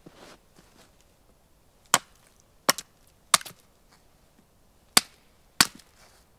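Sharp chopping strikes into a wooden pole, about five blows spaced unevenly over a few seconds, some followed by a lighter second knock.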